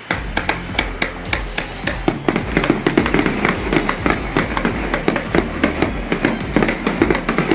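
Fireworks going off in quick succession: a dense run of bangs and crackles, several a second, with no let-up.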